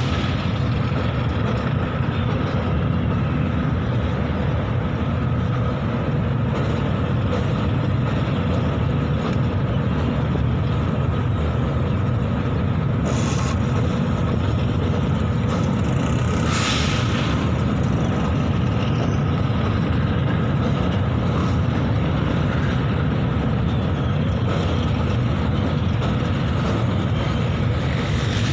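Long freight train of covered wagons rolling steadily past: a continuous low rumble of steel wheels on rails, with two short hisses about 13 and 17 seconds in.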